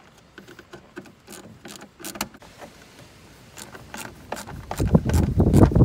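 Light metal clicks and rattles of a 7/32 nut driver working on the small screws of a blower motor housing, then louder rubbing and knocking starting about four and a half seconds in.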